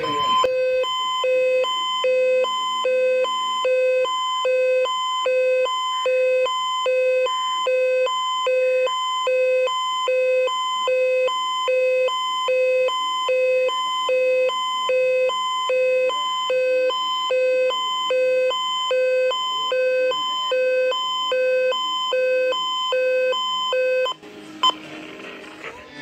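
A weather alert radio's electronic alarm beeping, a repeating two-pitch tone pulsing about once a second, which signals that an alert has been received. It cuts off suddenly about two seconds before the end, leaving only faint noise.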